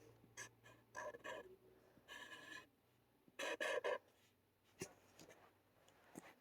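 Faint scattered clicks and short scratchy noises, the loudest a cluster about halfway through, with small-room echo.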